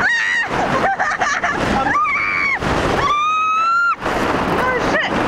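Riders screaming on the Behemoth steel roller coaster: three long, high-pitched screams, near the start, about two seconds in and about three seconds in, over a steady loud rush of wind and train noise.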